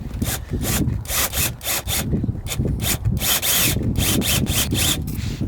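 Rough scraping or rasping strokes, about three or four a second and uneven in spacing and strength.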